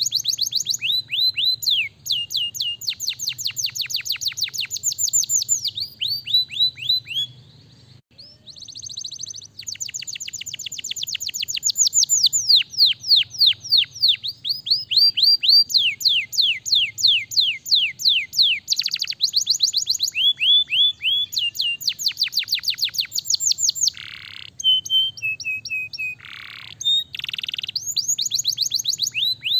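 Domestic canary singing a long song of fast trills, each a rapid run of down-sweeping whistled notes, changing from one trill to the next every second or two, with a short pause about eight seconds in.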